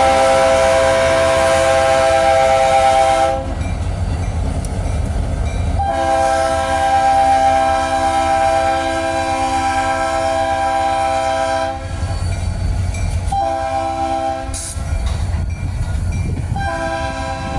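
Diesel locomotive's multi-chime air horn, KCS GP32ECO 2038's, sounding a series of blasts: one cut off about three seconds in, a long one of about six seconds, a short one, then another starting near the end. Under it runs the low rumble of the moving locomotive and train.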